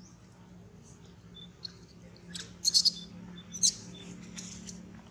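Baby macaque giving a quick run of short, shrill crying squeals in the middle, the loudest about three seconds in: distress calls of an infant separated from its mother.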